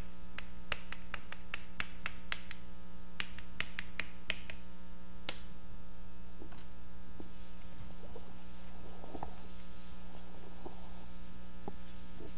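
Chalk writing on a blackboard: a quick run of sharp taps and short scratches for about the first five seconds, then scattered softer clicks, with faint eraser wiping on the board near the end. A steady electrical mains hum runs underneath throughout.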